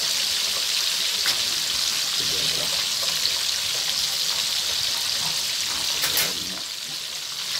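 Small ikan lais fish deep-frying in hot oil in a wok, giving a steady, hissing sizzle that eases slightly near the end.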